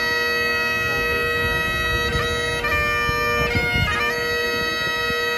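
Great Highland bagpipes playing: a steady drone under long held chanter notes that change a few times, with quick grace-note flicks between them.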